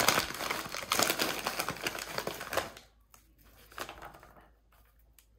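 Plastic snack bag crinkling as it is opened and handled, a dense crackling for nearly three seconds, then a few faint rustles and near quiet.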